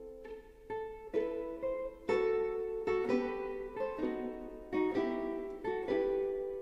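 Background music: a plucked string instrument playing a slow melody. Notes start about every half second, and each rings and fades.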